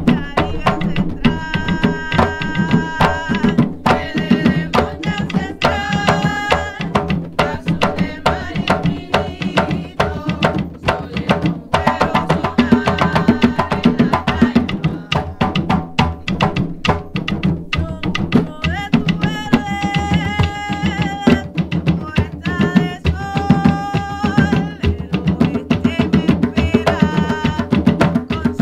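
Puerto Rican bomba drumming: several barril drums played by hand, the buleo drums keeping a dense, steady rhythm while the primo drum answers the dancer's movements with sharper strokes. Sung vocals come in and out over the drums in stretches.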